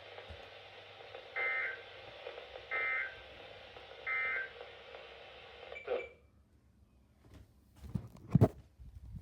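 Three short EAS end-of-message data bursts from a NOAA Weather Radio broadcast, raspy two-tone warbles about a second and a half apart over radio static. About six seconds in the station's carrier drops and the static cuts off suddenly. A few sharp clicks and thumps follow near the end.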